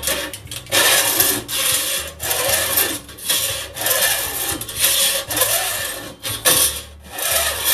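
A steel file rasping back and forth along the tops of a buck saw blade's teeth, about ten even strokes. This is jointing the blade: filing the teeth down to one height until each tip shows a small shiny flat.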